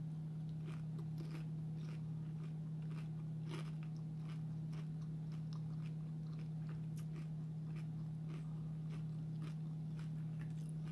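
A person chewing and biting into a crisp fried seafood egg roll, with irregular small crunches and crackles throughout, over a steady low hum.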